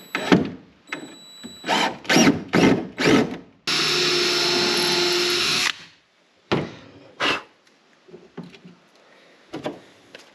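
DeWalt 12V MAX cordless drill/driver working into the wood framing: a few short spurts, then held on for about two seconds at a steady pitch, followed by a few more brief spurts.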